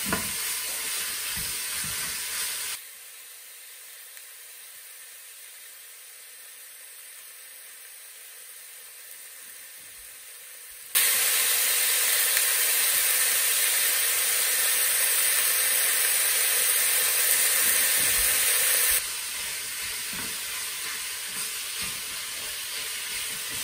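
Cubes of beef sizzling as they brown in an Instant Pot's stainless steel inner pot on the sauté setting, with a spoon stirring and scraping through them. The sizzle drops to a faint hiss about three seconds in. It jumps much louder about eleven seconds in and eases down again about nineteen seconds in.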